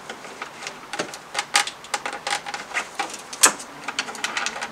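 Light, irregular clicks and taps of a motorcycle's plastic side panel being worked loose by hand, with one sharper click about three and a half seconds in.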